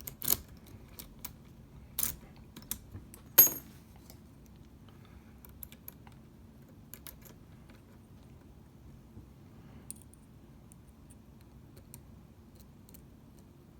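Metal clicks of lock picks and tension tool working in a Lince C4 lock: several sharp clicks in the first few seconds, the loudest about three and a half seconds in, then only faint scattered ticks.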